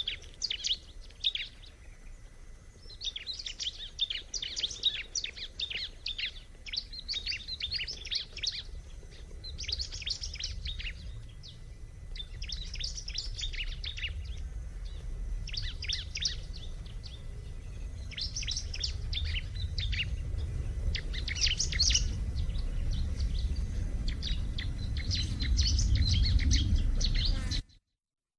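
Bar-winged prinia (ciblek) singing: repeated phrases of rapid, high chirps, each a second or two long with short pauses between. A low rumble of background noise grows louder in the second half, and the sound cuts out briefly near the end.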